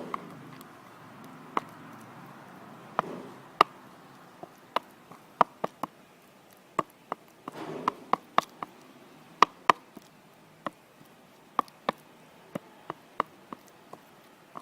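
Paintbrush handle stirring a glue-and-silicone slime mixture in a container: irregular sharp clicks and taps as it knocks and pulls through the sticky mass, somewhat fewer than two a second.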